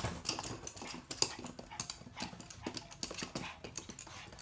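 Toy poodles' claws clicking on a wooden floor as they move about, a string of quick, irregular clicks.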